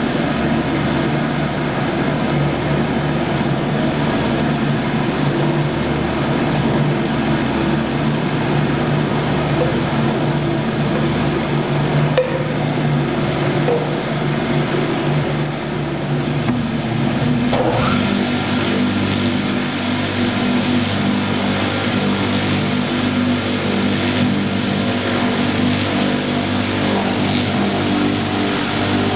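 Mainca CM-41 bowl cutter running, its knives chopping meat in the turning bowl: a steady machine hum. About two-thirds of the way through, its pitch shifts to a new steady note.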